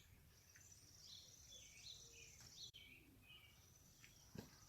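Faint chirps from house finches over a steady high insect trill, with a light knock near the end.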